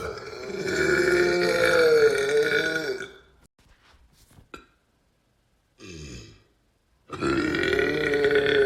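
A person belching: a long, drawn-out burp of about three seconds, then a brief, quieter burp falling in pitch about six seconds in, and another long burp starting about seven seconds in.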